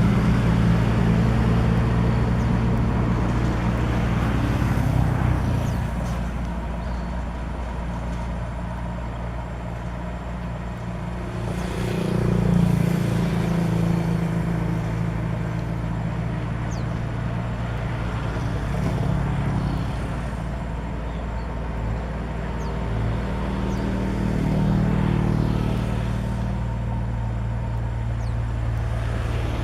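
Komatsu bulldozer's diesel engine running steadily while pushing dirt, with its pitch and loudness swelling twice under load, about twelve seconds in and again later.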